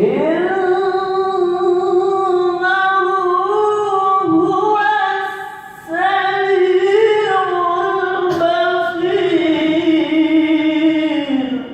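A single voice in melodic Quran recitation (tilawah), sung in long, ornamented held notes. There is a brief breath pause about five seconds in, and the second phrase slides downward in pitch near the end.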